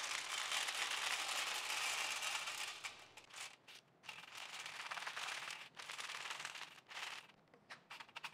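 Frozen mealworms being poured from a plastic tub onto a parchment-lined baking sheet: a dense patter of many small bodies landing on the paper for about three seconds, then two shorter pours. Near the end, hands spreading the worms into a single layer give a few scattered light ticks.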